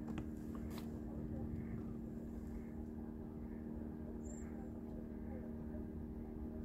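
Steady low mechanical hum of an engine running at an unchanging pitch, with a couple of faint clicks near the start and a brief high chirp about four seconds in.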